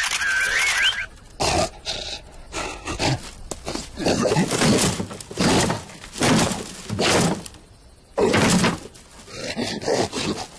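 Cartoon slapstick sound effects: a warbling high chirp in the first second, then a run of irregular thuds, bangs and scraping noises of varying length as a bamboo cage is knocked and dragged about.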